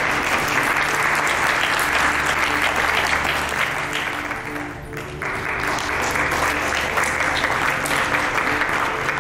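Audience applauding, with background music playing underneath. The clapping dips briefly about halfway through, then picks up again.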